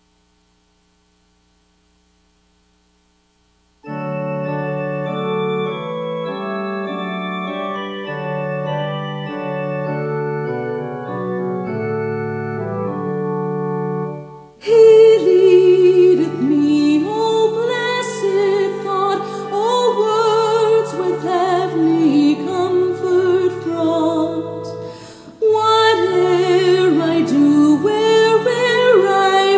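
Church organ playing slow, held chords after a few seconds of silence. About halfway through, a woman's voice comes in singing with vibrato over the accompaniment, with a brief pause near the end.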